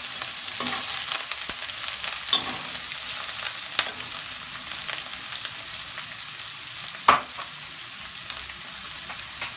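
Sliced vegetables (bell peppers, carrots, green onions) sizzling in hot oil in a wok while a slotted metal spatula stirs and tosses them, with a steady hiss and scattered sharp clinks of the spatula against the pan, the loudest about seven seconds in.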